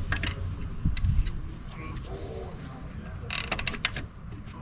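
Hand socket ratchet clicking while the alternator bracket bolts are run in: a few single clicks, then a quick run of clicks about three and a half seconds in.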